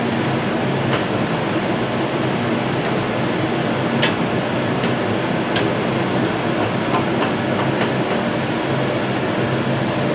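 Steady whirring hum of a kitchen range hood fan running over a gas stove, with a few light knocks and clinks of a wooden spatula against a wok.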